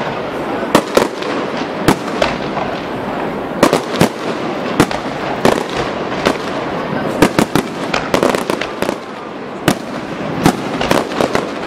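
Fireworks display: aerial shells bursting in a rapid, irregular series of sharp bangs, often two or three close together, over a continuous crackling din.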